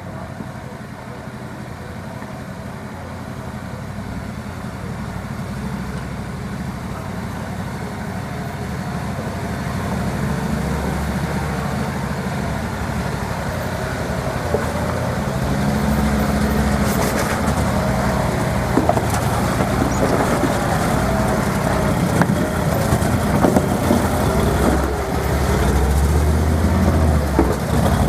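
Off-road vehicle's engine running slowly while crawling over rock, growing steadily louder as it comes closer. Scattered sharp knocks and clicks come in the second half.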